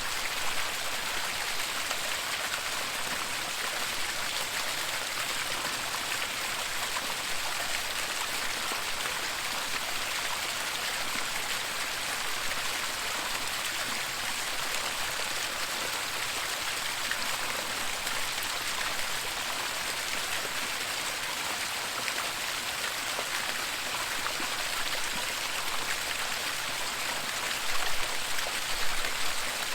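Waterfall with a steady, even rush of falling water, with a few brief louder splashes near the end.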